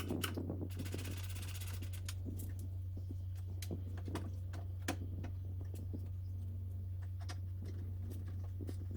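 A steady low hum with scattered light clicks and knocks, and a brief rapid rattle about a second in.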